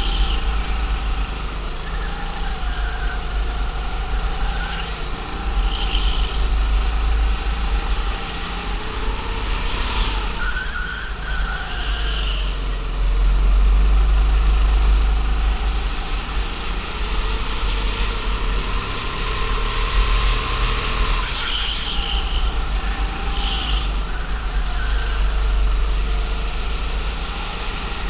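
Go-kart engine running hard, its pitch rising and falling as the kart accelerates out of corners and lifts off into them, over a heavy low rumble.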